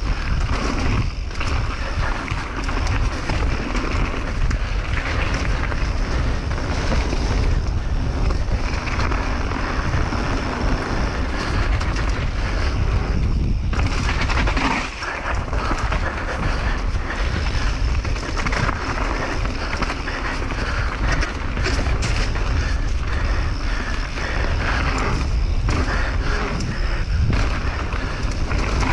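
Mountain bike riding down a rough trail: tyres rolling and clattering over the ground under heavy wind noise on the microphone, with a few brief lulls.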